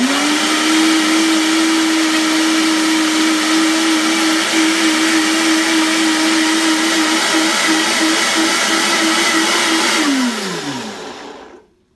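Countertop blender running at a steady high speed, puréeing a thick marinade of onion, garlic, habanero and a little water. After about ten seconds it is switched off and the motor whines down in pitch to a stop.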